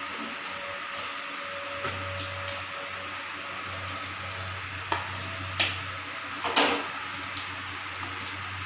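Rice pakoras frying in hot oil in a pan, a steady sizzle, with a few sharp clicks and a louder brief crackle about six and a half seconds in.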